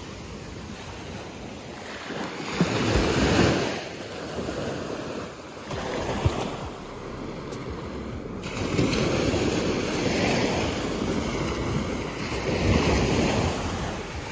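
Small waves breaking and washing up a sandy beach, swelling and fading in several surges, with wind noise on the microphone.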